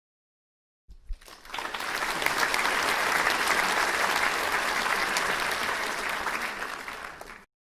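Audience applauding, starting about a second in and building quickly, then cut off suddenly near the end.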